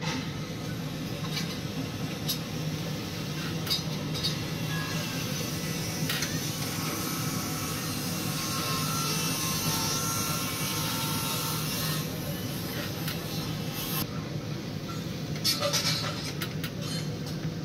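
Steady low hum inside a tower crane cab, with scattered light clicks and knocks.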